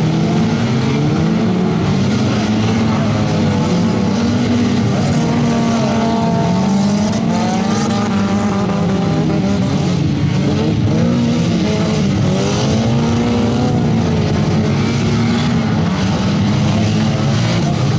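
Several race-car engines revving up and down at once, their pitch rising and falling continuously as the cars accelerate and slide around the dirt track.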